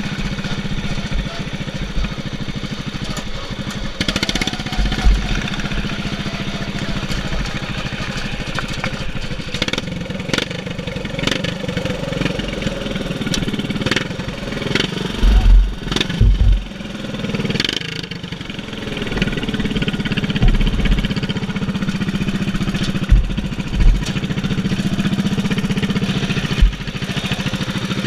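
Governed GP-class racing lawn mower engine running steadily at one even pitch, with scattered low thumps and a few sharp knocks.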